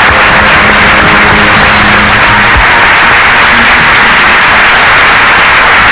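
Loud, sustained applause from a large crowd, steady throughout.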